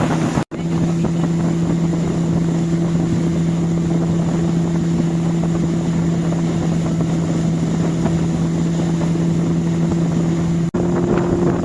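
Motorboat engine running at a steady cruising speed with a constant hum, under wind buffeting the microphone and the rush of the boat through the water. The sound drops out for an instant about half a second in and again near the end.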